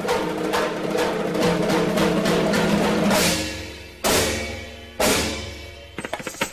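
Drum-led instrumental break in a Banjara Holi folk song. Fast drum beats over held instrumental tones give way about three seconds in to three heavy drum strikes, each about a second apart and each left to ring out. A quick roll of strikes comes near the end.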